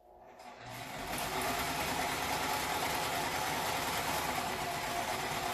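Electric home sewing machine stitching through cotton fabric: the motor and needle build up to speed over the first second, then run steadily at a fast, even rhythm.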